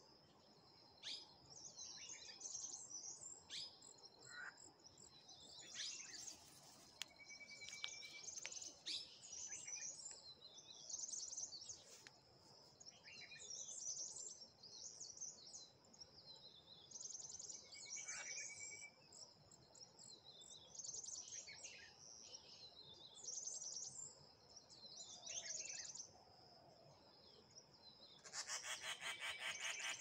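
Small wild birds chirping and calling in a morning chorus, with a few short clear whistles among the chirps and a thin steady high tone underneath. Near the end comes a loud rapid rattling buzz lasting about two seconds.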